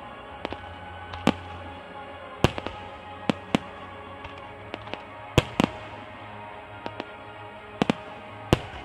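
Aerial firework shells bursting in a rapid, irregular string of sharp bangs, some in quick pairs and triplets, the loudest about halfway through and near the end. Music plays steadily underneath.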